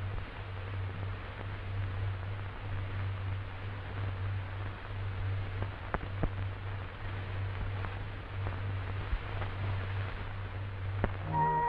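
Hiss and a steady low hum from a worn old film soundtrack, with a few crackling clicks. Music starts right at the end.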